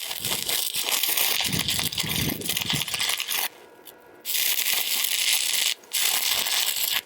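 Electric arc welding: a steady crackling sizzle of the arc, in three runs that stop briefly about three and a half seconds in and again near six seconds, as the weld is stopped and restarted.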